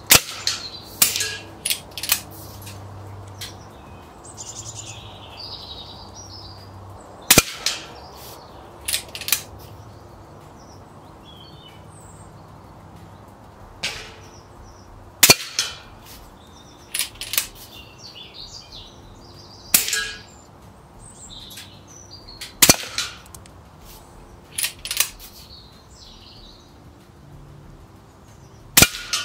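Shots from a .22 Daystate Red Wolf Heritage pre-charged air rifle: a sharp crack every few seconds, with smaller clicks and knocks between the shots. Birds chirp in the background.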